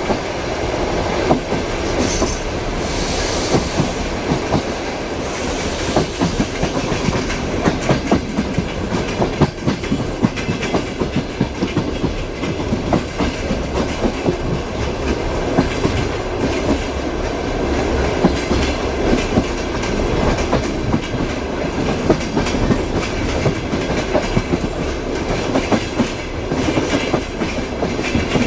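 Passenger train wheels clattering over rail joints: a steady rolling rumble with irregular clickety-clack knocks. There are two short high hisses in the first few seconds.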